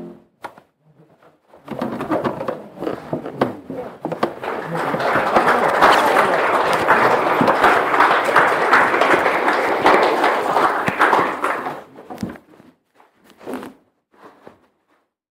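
Audience applauding once the choir's piece has ended: the clapping builds up about two seconds in, holds steady, then dies away about twelve seconds in, leaving a few last claps.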